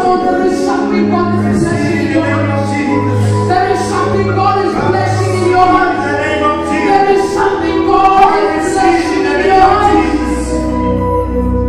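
A woman singing a gospel worship song through a handheld microphone, with held, gliding notes, over steady low backing music.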